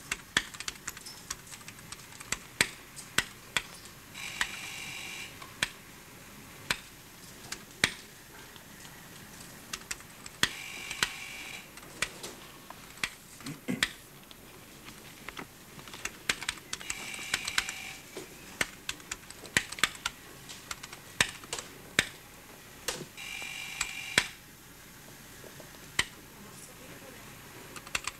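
An electronic buzzer-like tone, about a second and a half long, sounds four times at even spacing of roughly six seconds. Many irregular sharp clicks and ticks run throughout.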